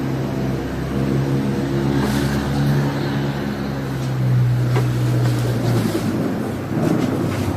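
A low, steady hum with overtones over a deep rumble; its pitch steps slightly lower about four seconds in, and it fades out about six seconds in.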